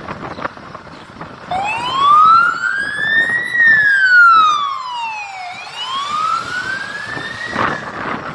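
Fire engine's siren sounding a slow wail on an emergency turn-out: it starts about a second and a half in, rises, falls and rises again, then cuts off near the end, over the truck's engine running.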